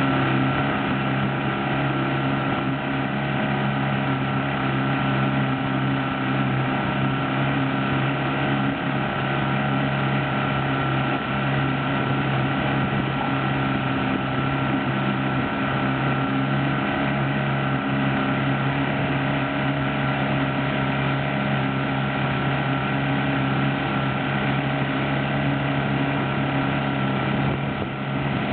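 Outboard motor running steadily at speed with a constant pitch, close by, over a steady rush of wake water and wind; the level dips slightly near the end.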